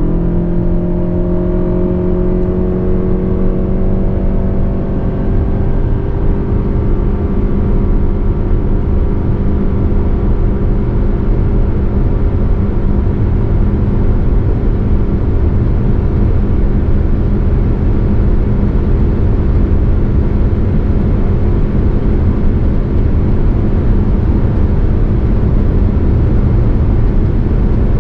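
Lexus RX 350h's four-cylinder hybrid engine running hard under full-throttle acceleration, heard inside the cabin. Its pitch rises a little at first, then holds almost steady while the e-CVT lets road speed climb toward 200 km/h, and road and wind noise build slowly underneath.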